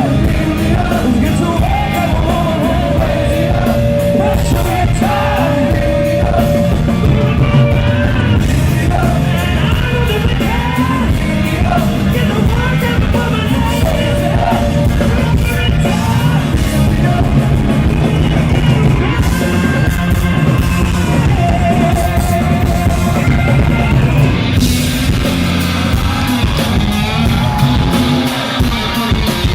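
Live blues-rock band playing loud over a PA, with a lead vocalist singing and held high notes.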